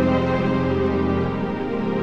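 Background music with slow, sustained chords; the low notes change about one and a half seconds in.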